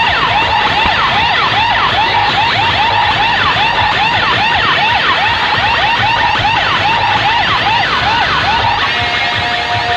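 Siren effect played loud through a DJ truck's sound system: rapid rising-and-falling wails, about three a second, over a low bass rumble. Near the end the wails stop and a steady tone takes over as the music begins.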